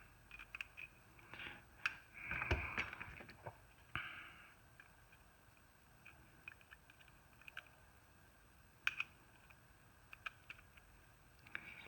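Faint clicks and a short scrape of a small die-cast toy car's metal and plastic parts being handled and worked apart by hand, with a few sharper ticks about nine seconds in.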